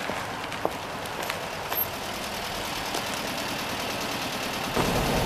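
Volkswagen Type 2 bus engine idling steadily, with a few light footsteps on pavement. Near the end the engine sound grows louder and fuller.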